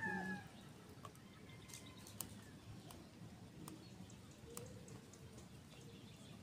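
A rooster's crow trailing off at the very start, its pitch falling. Then quiet, with a few faint scattered ticks from a steel needle picking at a fresh eggshell.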